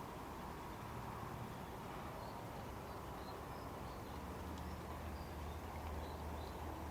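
Faint steady rural outdoor ambience with a low hum, and scattered short, faint, high chirps.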